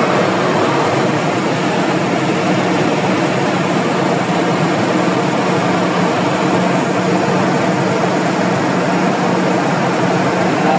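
Toyota 1RZ 2.0-litre four-cylinder petrol engine running steadily, now that its fuel pump is working again after a no-start caused by no fuel supply.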